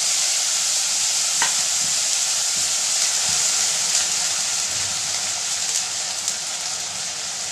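Chopped onions sizzling in hot oil in a kadhai: a steady high frying hiss that slowly fades, with a few faint clicks.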